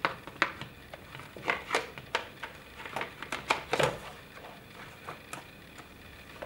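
Hard plastic clicking and knocking as a motor controller box and its cables are pushed through a golf buggy's plastic cowling: a quick run of sharp taps in the first four seconds, then only a few.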